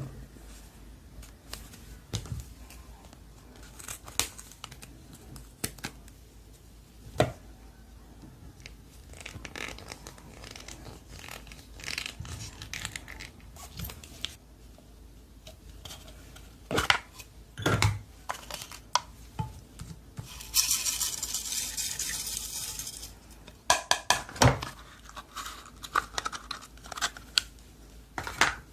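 Hands squishing and stretching slime: scattered sticky pops and clicks, with a few seconds of crackly crinkling about three-quarters of the way through.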